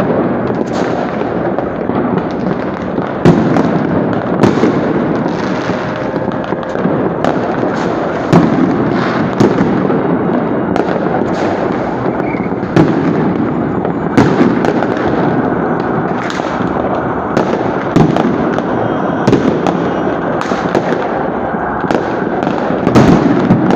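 Fireworks salute shells bursting: a steady din of many overlapping bangs and crackles, with louder single bangs standing out every second or two.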